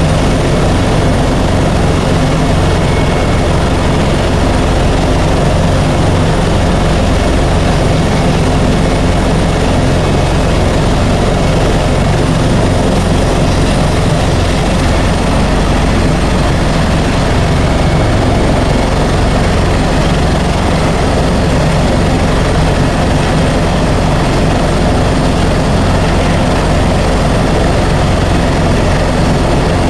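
Helicopter engine and rotors running steadily and loudly, an even low drone with a hiss above it.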